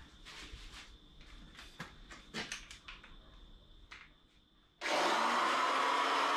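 Short, irregular strokes of a hand tool working along a plywood edge, trimming it to the line. About five seconds in, a power tool starts suddenly and runs loud and steady.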